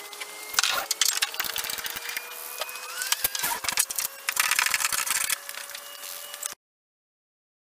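Irregular rubbing, scraping and clicking of straps and hardware against the hull as an Ascend fishing kayak is tied down in a pickup truck bed. The sound cuts off suddenly about six and a half seconds in.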